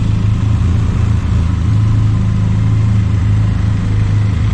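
Benelli TRK 502X motorcycle's parallel-twin engine running steadily near idle as the bike creeps forward from a stop.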